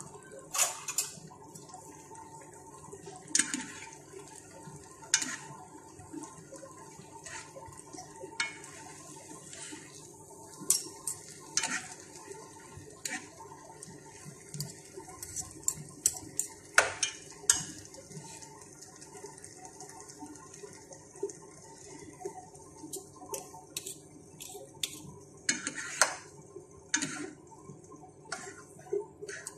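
Kitchen utensils clinking and knocking against a metal pan and plate in short, irregular strikes as cooked spaghetti noodles are tossed, over a faint steady hum.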